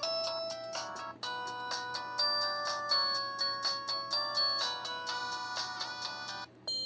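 LG C1300 mobile phone playing a polyphonic ringtone: a quick melody of short synthesized notes, several sounding together. It stops about six and a half seconds in, and another ringtone starts right after.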